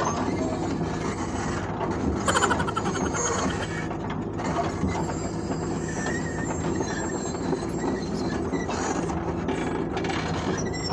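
Bulldozer's diesel engine running steadily under work, with metallic squeals and clanks over it; a sharp metallic screech about two seconds in is the loudest moment.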